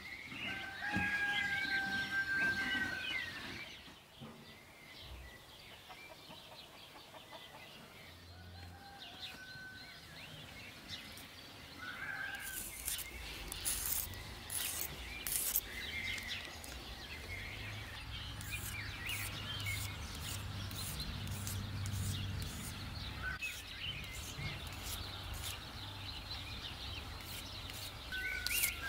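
Songbirds calling and whistling outdoors. From about halfway through, a run of short scratchy rubbing sounds as turkey eggshells are wiped clean with a cloth, over a low steady hum.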